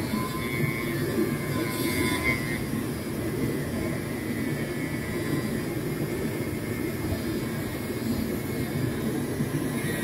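Small 3.6 V cordless rotary tool running at low speed, a felt polishing pad with compound buffing a stainless steel extruder nozzle; a steady whir with a faint thin whine.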